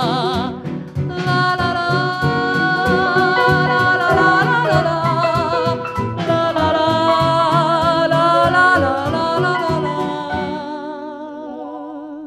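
A 1950s Italian popular song with orchestra, in mono. A female voice holds the last sung note with a wide vibrato for about half a second. The orchestra then plays an instrumental passage over a steady beat, which grows quieter near the end.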